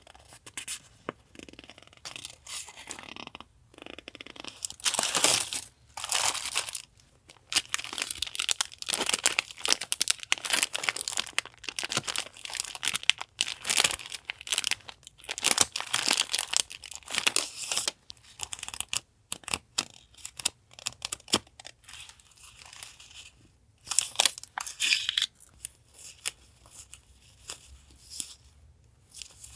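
Paper and packaging being handled and unwrapped by hand: irregular crinkling, rustling and tearing in close bursts with brief pauses.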